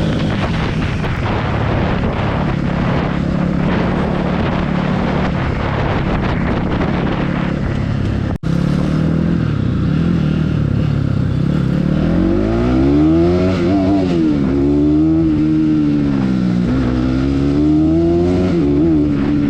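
Bajaj Pulsar NS200's single-cylinder engine running at a steady pitch, then after a brief dropout revving up and down repeatedly from about twelve seconds in, its note rising and falling through the gears.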